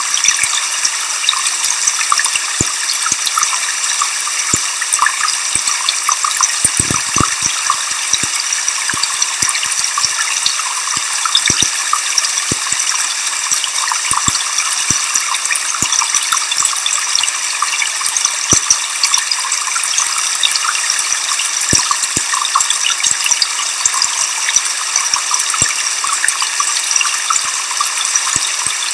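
Waterfall rushing steadily, mostly a high hiss with little low rumble, with many scattered sharp ticks.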